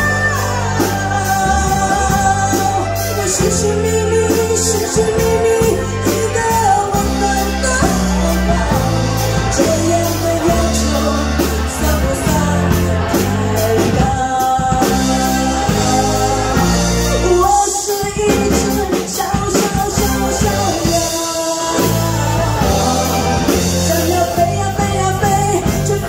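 A woman singing a Mandarin song into a handheld microphone, over keyboard accompaniment with a bass line and a steady beat.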